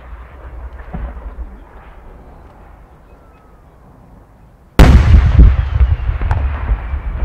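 A low rumble fades away, then about five seconds in comes a single heavy boom: a large No. 10 aerial firework shell bursting. A long rolling echo follows.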